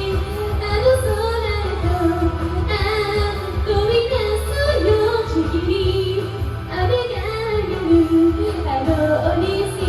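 A woman singing a J-pop song over a karaoke backing track with steady bass.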